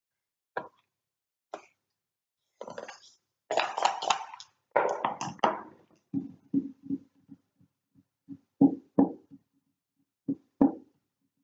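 Backgammon pieces on a wooden board: a checker clicks down twice, then dice rattle in a cup and are thrown, clattering and bouncing to a stop. A few sharper clicks follow near the end.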